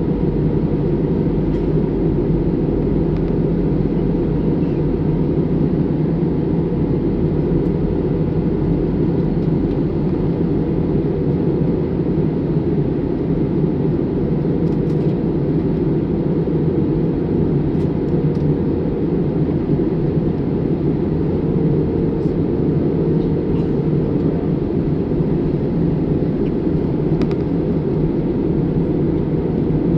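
Steady drone of jet engines and rushing air inside an airliner cabin in flight, with a low hum running under it.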